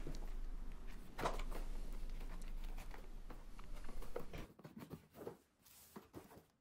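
Unboxing sounds: a small plastic parts bag crinkling and the cardboard box and its moulded insert being handled, with scattered light clicks. It drops to near silence about two-thirds of the way through.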